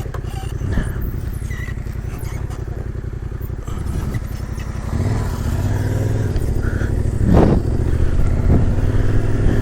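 Motorcycle engine running while riding on a gravel road, rising in pitch and getting louder as it speeds up about halfway through, with a short sharp knock about seven seconds in.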